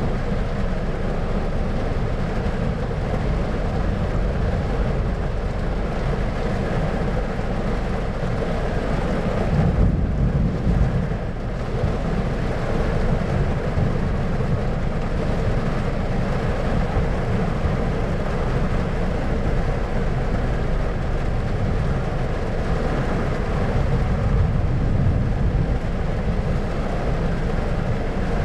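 Steady low rumbling noise that swells briefly about ten seconds in.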